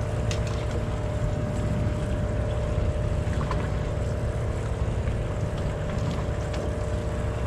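Fishing boat's engine idling, a steady low hum with a constant drone, and a few faint clicks over it.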